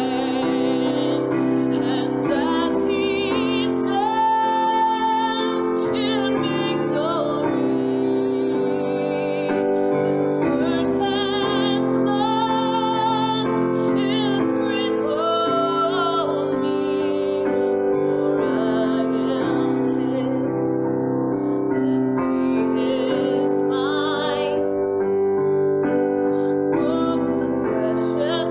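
A woman singing with her own grand piano accompaniment, her voice holding long notes with vibrato over sustained piano chords.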